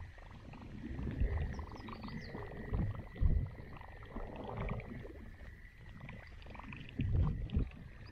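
Low knocks and thumps from fishing gear and a plastic kayak being handled, the loudest about three seconds in and a cluster near the end, over a steady faint high-pitched whine.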